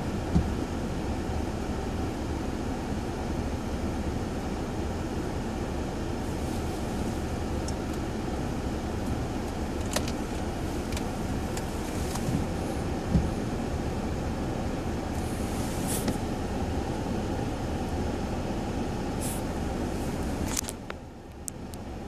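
Steady cabin noise of a car sitting stationary at a traffic light with its engine idling, with a few light clicks scattered through it. The sound drops and goes muffled for about a second near the end.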